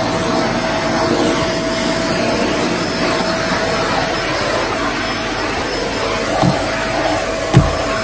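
Kmart 2000 W vacuum cleaner running steadily on carpet, a steady motor whine over its airflow noise. Two low thumps near the end, the second louder.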